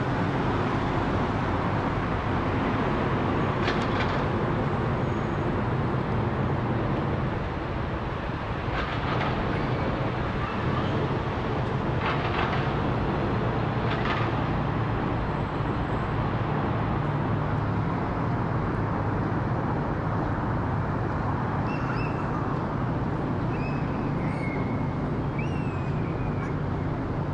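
The GE90 turbofan engines of a Boeing 777-300ER give a steady low rumble as the airliner passes overhead. A few bird chirps come near the end.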